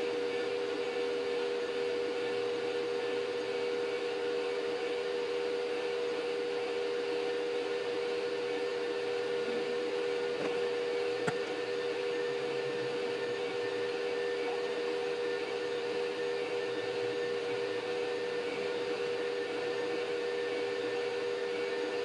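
Anycubic Vyper 3D printer running mid-print, a steady whirring hum with one short click about eleven seconds in.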